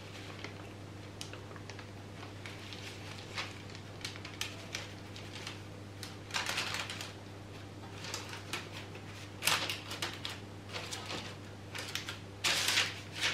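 Soft crinkling and rustling of a plastic piping bag and parchment baking paper as stiff biscuit dough is piped and shaped by hand, in scattered faint crackles with a few louder rustles. A steady low hum runs underneath.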